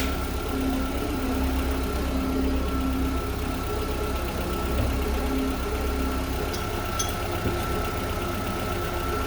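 Car engine idling steadily, with a thin steady high-pitched whine running alongside.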